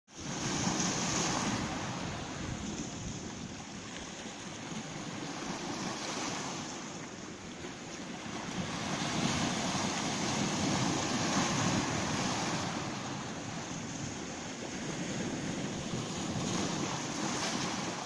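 Small Baltic Sea waves washing in over a stony shore of pebbles and boulders, the surf swelling and easing in slow surges every few seconds.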